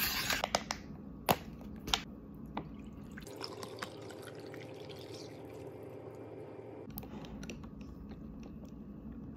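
Juice poured from a plastic drink pouch into a glass full of ice, a steady pour starting about three seconds in and lasting about three and a half seconds. It is preceded by a few sharp clicks as the pouch is handled, and followed by faint small clicks.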